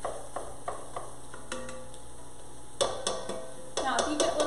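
Mix 'N Chop tool stirring and crumbling browning sausage in an enameled cast iron Dutch oven, with short clicking scrapes and a light sizzle of the frying meat. A few louder knocks of the tool against the pan come about three seconds in and again near the end.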